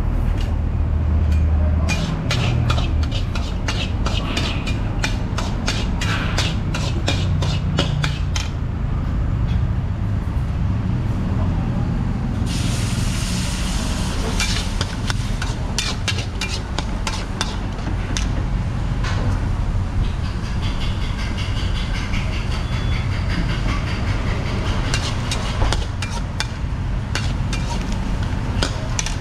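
Metal ladle and spatula clanking and scraping against a steel wok as pad thai ingredients are stir-fried, over a steady low rumble from the gas burner. About twelve seconds in, a burst of sizzling lasts two or three seconds as sauce hits the hot wok.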